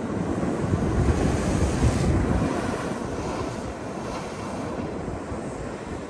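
Ocean surf breaking on the edge of a rock platform, a rushing wash that swells about a second in and eases off after about three seconds. Wind buffets the microphone underneath.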